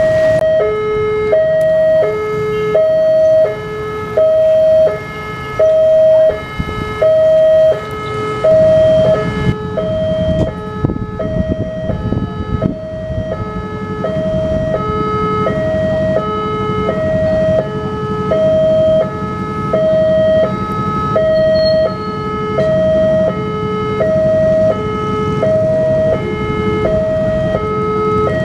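Electronic level-crossing warning alarm sounding a steady two-tone high-low pattern, about two tones a second. From about ten seconds in, a low engine rumble grows beneath it as a diesel locomotive approaches.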